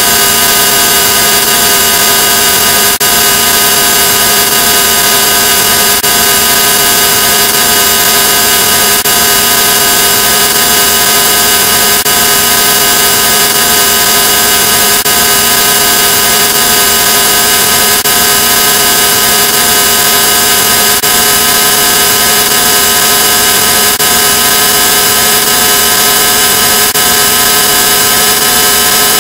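Harsh, heavily distorted electronic noise: a loud hissing drone with several steady tones held throughout, and a faint click about every three seconds.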